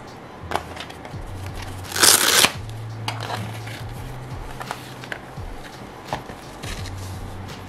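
A short, loud rasping rip about two seconds in, as the hook-and-loop (Velcro) fastening of a tablet case's fabric hand strap is pulled apart. Scattered light clicks and taps of hands handling the plastic case come before and after it.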